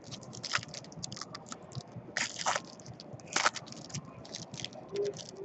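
Foil wrapper of a Panini Clear Vision football card pack crinkling and tearing as it is pulled open by hand, with louder crackles a little past two seconds and again about three and a half seconds in.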